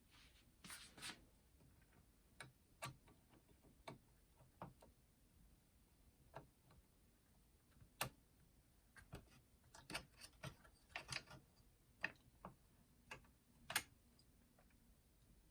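Faint, irregular small clicks and taps of the boombox's cassette mechanism parts being handled and fitted back into place, coming more often in the second half.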